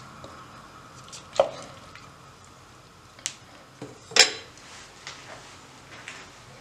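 Wooden spoon stirring thick tomato sauce in a ceramic pot, with a few sharp knocks of the spoon; the loudest comes about four seconds in.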